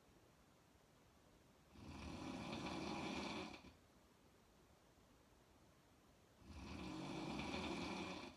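A woman snoring loudly with her mouth open: two long snores about five seconds apart, each lasting nearly two seconds, with quiet breaths between.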